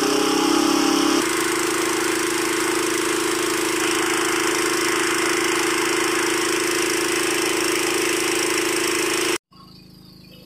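Small kerosene-fuelled engine of a portable water pump running steadily under load, spouting muddy water through its discharge pipe. The sound stops abruptly near the end.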